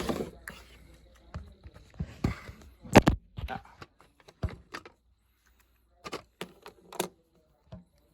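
Wind-up toy seal clicking and clattering against a hard surface in irregular knocks, the loudest about three seconds in, with a few scattered clicks near the end.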